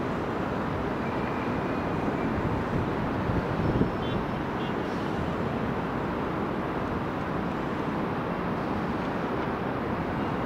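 Steady rumble of heavy diesel trucks and street traffic, with a brief louder knock a little under four seconds in.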